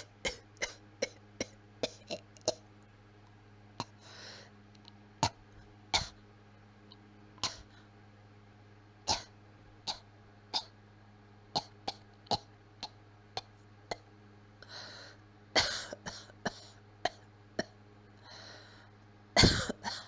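Weak, dry coughing: a long series of short coughs at irregular intervals, some in quick runs of two or three, with a few breathy exhalations between them. A faint low hum runs underneath.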